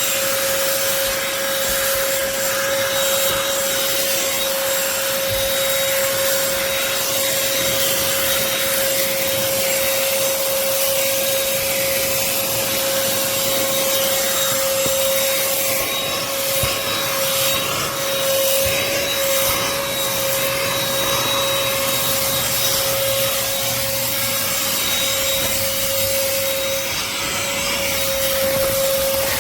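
BLACK+DECKER cordless Pivot handheld vacuum running steadily: a constant motor whine over the rush of air.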